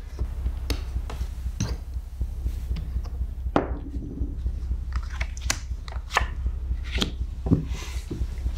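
Poker chips and cards handled on a felt card table: irregular sharp clicks and clacks, several a few seconds apart, over a steady low hum.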